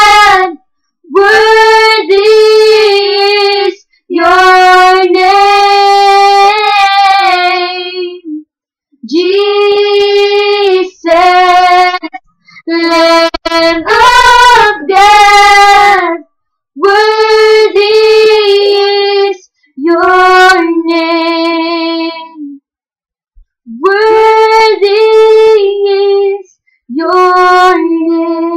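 A young girl singing unaccompanied, in short phrases of held notes with brief pauses between them.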